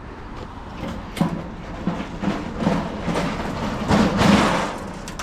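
A run of clanks and rattles as scrap metal is handled, loudest about four seconds in.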